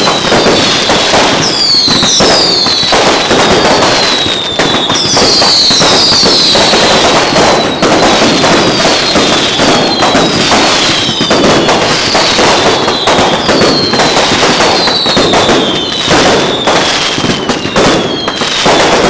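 Fireworks going off in rapid succession: a dense, loud crackling and popping, with repeated whistles that fall in pitch about every second or two.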